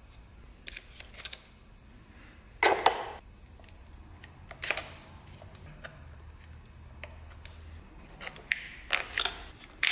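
Sharp clicks and knocks of a screwdriver prying plastic wiring connectors off a BMW E30's ABS unit. The loudest clunk comes about three seconds in, and a quick run of clicks near the end.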